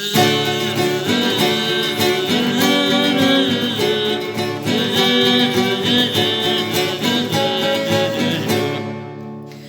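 Guitar accompaniment to a children's song, with a voice imitating a mosquito's buzz in drawn-out 'zzz' sounds; it fades out near the end.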